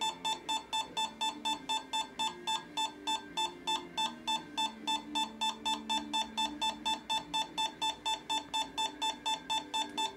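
EMF meter's alarm beeping steadily, about four short high-pitched beeps a second: it sounds when the meter's reading goes up into the red, showing a high field reading.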